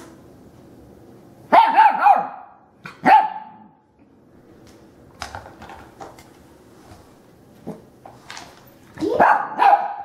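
Young Rottweiler puppy giving short, high-pitched barks at a vacuum cleaner she is wary of: a couple of barks about a second and a half in, one more about a second later, then a flurry of barks near the end.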